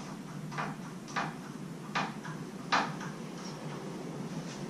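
Four short clacks of a shovel and its rack-mounted shovel holder being handled on a roof rack platform, the last the loudest, over a steady low hum.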